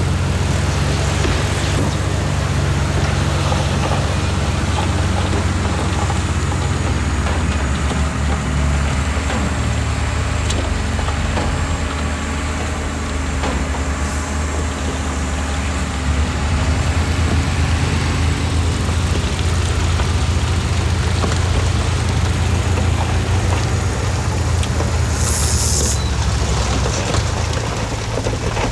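Heavy diesel engine of earthmoving equipment running steadily with a deep drone, and a short hiss about three seconds before the end.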